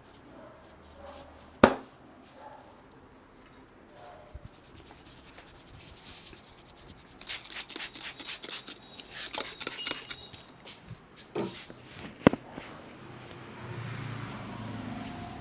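Hands rubbing and scrubbing through hair and scalp in a barber's head massage, with a quick run of scratchy friction strokes in the middle. Two sharp, loud snaps come about a second and a half in and again near the end.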